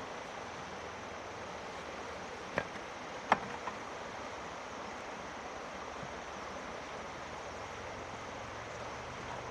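A steady rushing noise with two sharp knocks, about two and a half and three and a half seconds in.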